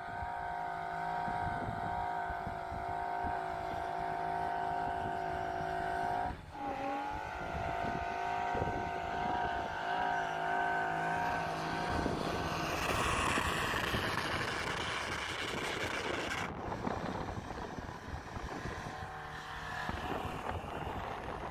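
Off-road 4x4 engines working through deep snow. A steady, even engine note holds for the first dozen seconds, with a brief break about six seconds in. After that a broader rushing noise takes over as a vehicle ploughs on.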